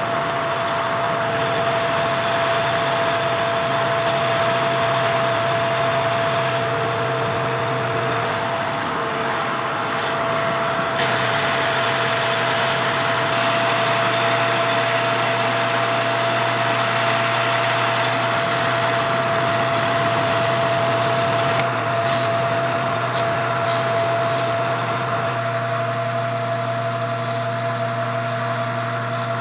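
Metal lathe running and a cutting tool turning the outside profile of a bronze hub blank: a steady motor whine and low hum under the hiss of the cut, which changes in tone a few times.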